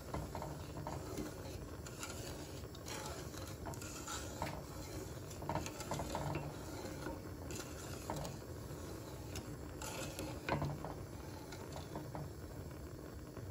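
Wooden spoon stirring liquid in a metal pot, scraping and knocking against the bottom and sides at irregular intervals over a steady low hiss.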